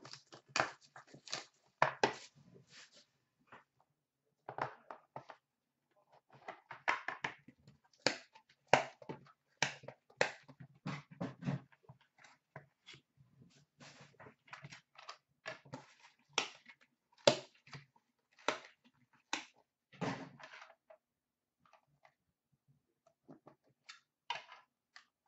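Hockey card box being opened and handled on a glass counter, the cards inside in clear plastic holders: a stream of irregular clicks, taps and rustles of cardboard and plastic. It thins out to a few scattered clicks in the last few seconds.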